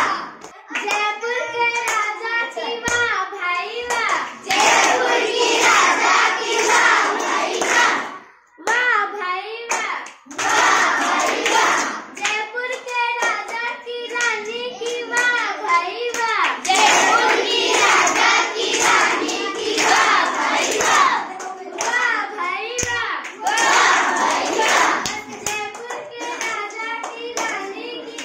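A group of children clapping their hands and chanting or singing in unison, the stretches of clapping and voices alternating several times.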